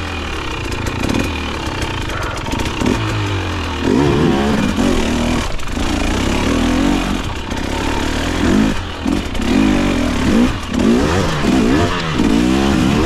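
KTM dirt bike engine revving up and down in repeated bursts of throttle while climbing a steep trail.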